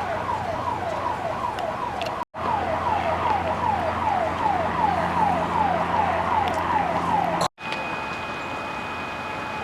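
Emergency vehicle siren in a fast yelp, each cycle falling in pitch, about three a second, with a brief dropout about two seconds in. It cuts off suddenly near the end, leaving a steady rushing noise with a faint high whine.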